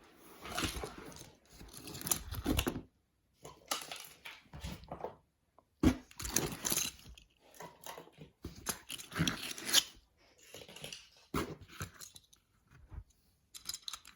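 Plastic and silicone fidget toys being rummaged through and taken out of a bin: uneven bursts of rustling and clattering with sharp clicks and brief pauses between handfuls.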